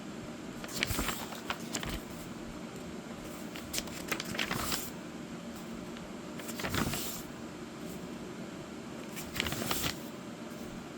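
Pages of a coloring book being turned: four short papery rustles, a few seconds apart, over a steady low hum.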